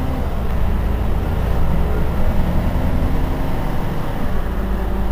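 Heuliez GX 327 city bus's rear-mounted engine idling with a steady low hum.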